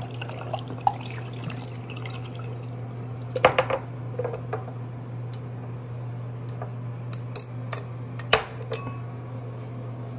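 Water poured out of a clear cup into a bathroom sink for the first couple of seconds, then a scatter of sharp clicks and knocks as small objects are handled and set down on the countertop. The loudest knocks come about three and a half seconds in and again near eight seconds in, over a steady low hum.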